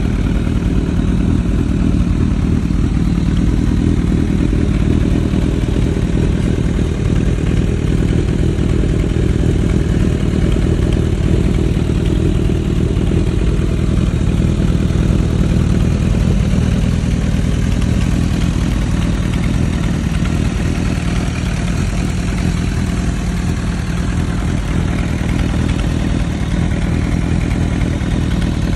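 Motorcycle engine idling steadily, now running on a new spark plug that replaced a fouled one.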